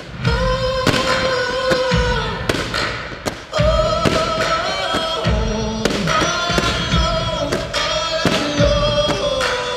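Fireworks bursting in an irregular string of bangs and deep thuds over loud show music, which starts abruptly at the outset.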